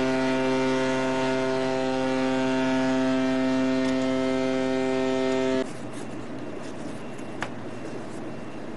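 Ship's horn sounding one long, steady blast that cuts off sharply about five and a half seconds in, leaving a steady background noise.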